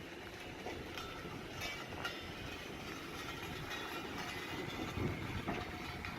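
Slow-moving Class 306 electric multiple unit coach: a steady low rumble with a few short clanks about one, two and five seconds in.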